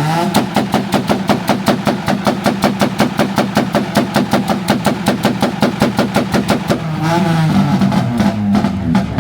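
Tuned import car engine revved up and held on a two-step launch-control limiter, firing a rapid string of sharp pops and bangs, about seven or eight a second. About seven seconds in, the popping stops and the engine goes back to revving up and down.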